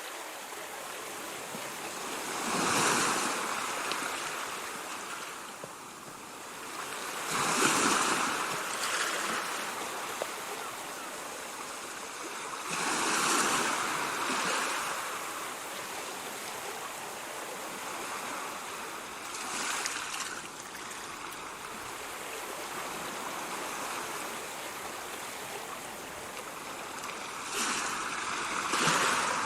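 Ocean waves breaking, five surges of surf about every five to seven seconds, each swelling and washing away over a steady rush of water.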